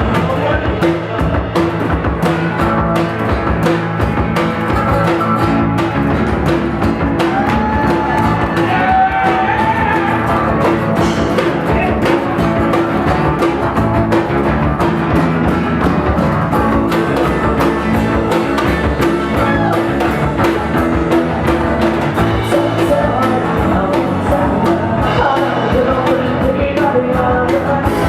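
Pop-punk band playing live: guitar with a steady drum beat and a singing voice.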